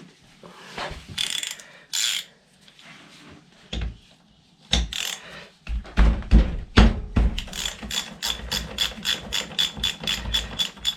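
Socket ratchet wrench clicking in quick even strokes, about five a second, while backing out the scooter engine's oil drain plug. A few knocks and clunks come before, as the wrench is fitted.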